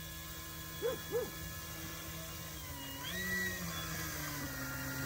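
Electric motor and propeller of an E-flite Carbon-Z Cessna 150T RC plane running at low throttle as it taxis, a steady whine that steps up in pitch about three seconds in as the throttle is raised. Two short hoot-like calls, each rising then falling, come about a second in.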